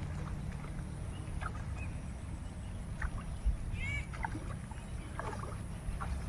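Feet splashing and wading through shallow floodwater in a paddy field, over a steady low rumble, with a few short bird calls.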